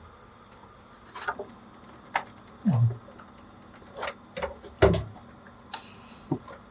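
Irregular clicks and knocks of hands handling computer hardware while fitting RAM into a desktop PC, with two heavier thumps, the loudest about five seconds in.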